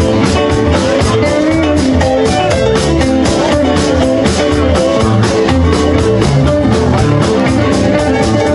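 A rock band playing: electric guitar and bass over a drum kit keeping a steady beat.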